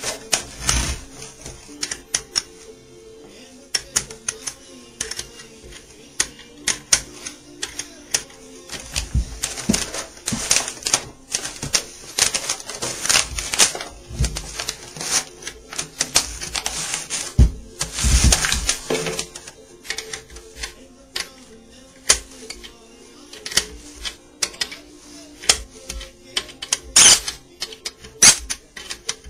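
Irregular clicking, tapping and rustling from hand work on a banjo pot: paper towel pressed and rubbed over the new head, and metal hooks and nuts clicking against the tension hoop and rim as they are fitted.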